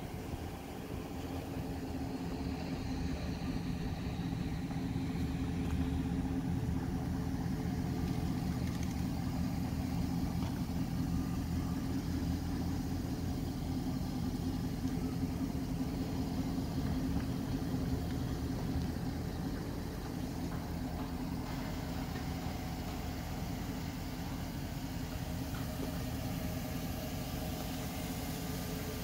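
Chevrolet Silverado's 4.8-litre V8 idling steadily, a little louder through the middle of the stretch.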